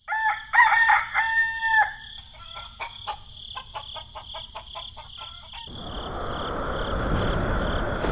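A rooster crowing once, followed by a run of short clucks; about six seconds in, a steady hiss sets in and slowly grows louder.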